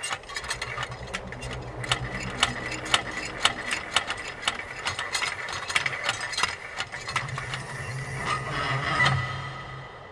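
A machine running with a steady hum, overlaid by rapid, irregular mechanical clicks and rattles; it swells briefly near the end, then drops.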